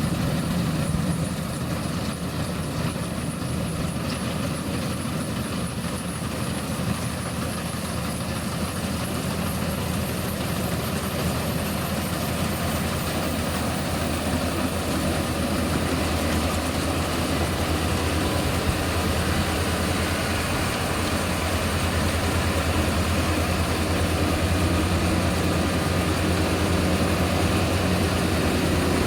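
Engine and drive of a small World Star paddy combine harvester running steadily, a dense mechanical drone. A faint high whine climbs slowly in pitch over the first half.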